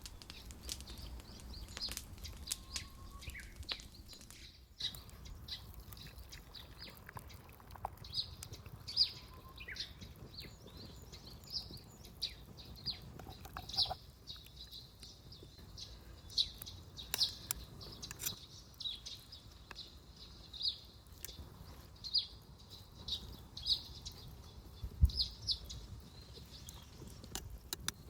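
Wood campfire crackling with irregular small pops, while small birds chirp.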